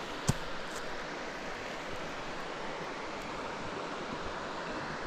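Steady rushing of the South Yuba River, an even hiss of flowing water, with a single sharp knock shortly after the start.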